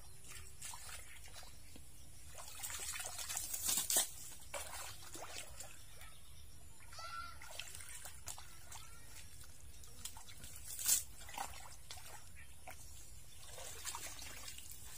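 Muddy water in a drainage ditch sloshing and trickling as barefoot workers wade through it and dig with a shovel. There are a few sharper splashes, the loudest about four and about eleven seconds in.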